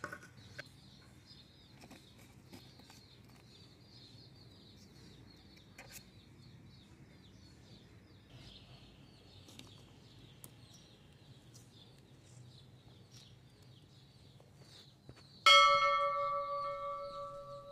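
A single bell-like chime, struck about three-quarters of the way through and ringing out with several steady pitches as it fades over about three seconds; this is the notification-bell sound effect of a subscribe-button overlay. Before it, only faint ticks and rustles of foil-wrapped chocolate eggs being handled.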